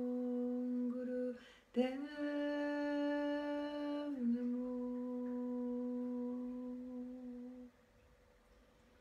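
Woman chanting a Kundalini mantra in long, sustained, hummed tones. A held note breaks for a quick breath about a second and a half in; a slightly higher note follows, then the voice drops back to the first pitch and fades out near the end.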